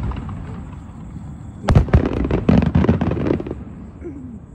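Aerial fireworks shells bursting: one bang at the start, then a rapid run of bangs from about two seconds in that dies away near the end.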